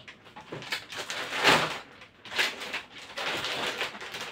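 Crinkling and rustling of anti-static plastic bags as motherboards are handled and set down on a counter, in several uneven bursts, the loudest about one and a half seconds in.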